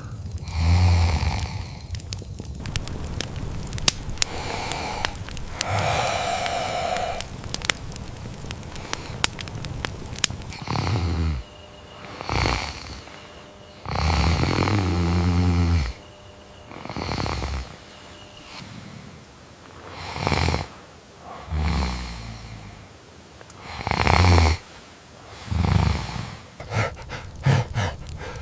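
A person snoring: deep snores roughly every couple of seconds through the second half, after a stretch of scattered sharp clicks.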